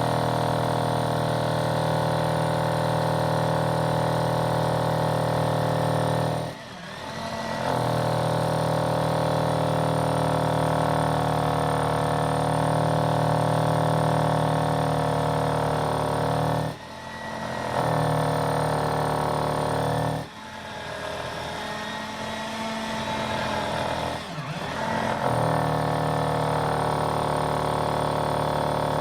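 Electric drill boring into concrete, its motor running steadily with a strong whine. It stops and restarts briefly about four times, and runs quieter and rougher for a few seconds in the latter half.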